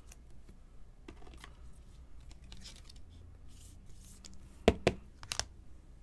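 Trading cards being handled: faint rustling and sliding of card stock, then a quick run of sharp clicks about five seconds in, the loudest sound.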